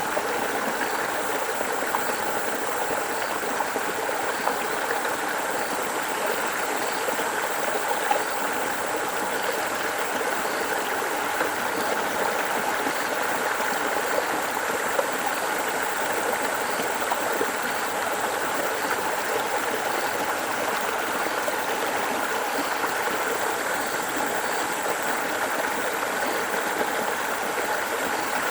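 A dense, steady chorus of many frogs or toads calling at once, merging into a continuous wash of sound without pauses.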